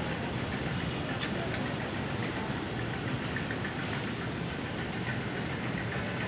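Steady street traffic noise with a low, even engine hum from vehicles running nearby.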